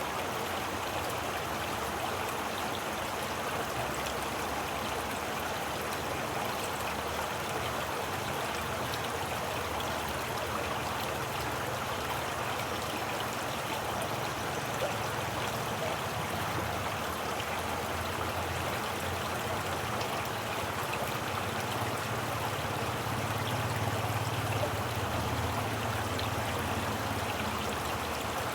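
Running water flowing steadily in an even wash, with a low rumble that swells slightly near the end.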